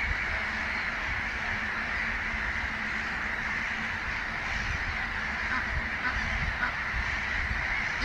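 Egyptian geese and their downy goslings calling, heard as a dense, continuous chorus of calls.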